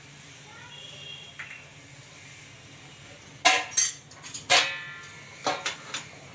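Metal cookware being handled: a cluster of sharp clinks and knocks about three and a half seconds in, one with a brief metallic ring, then a few lighter taps near the end.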